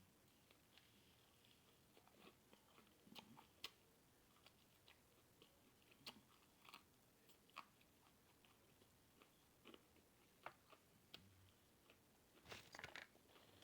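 Faint close-up chewing: a person eating, with scattered wet mouth clicks and smacks, and a denser run of them near the end.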